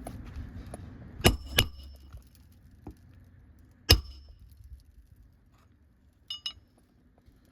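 Hammer striking metal with a short ring: roofing nails being driven into a repaired shingle. Two quick loud blows, a third about two seconds later, then two lighter taps near the end.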